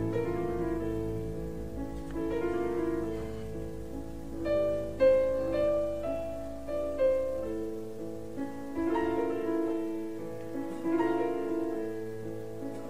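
Slow instrumental background music of sustained, overlapping melodic notes. A low held bass note drops out about two-thirds of the way through.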